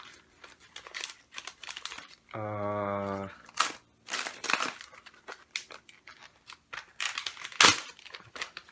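Wrapping paper crinkling and tearing as a taped-up package is unwrapped by hand, in many short crackly rips. About a third of the way in comes a steady, buzzy tone lasting about a second, and a loud sharp crackle comes near the end.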